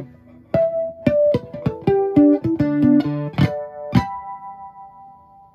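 Nylon-string electric guitar played through a CoolMusic BP-80 portable amplifier: a quick run of plucked single notes, ending on a higher note that rings out and fades away.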